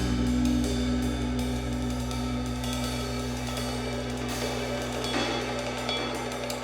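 Background music with a drum kit, cymbals and hi-hat over sustained low notes, gradually fading out.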